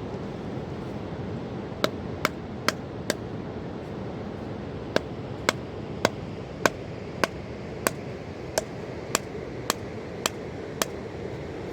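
A series of sharp, hard knocks, as of hammering or chopping, over a steady rushing noise. There are four quick strikes, a short pause, then eleven more at an even, slower pace.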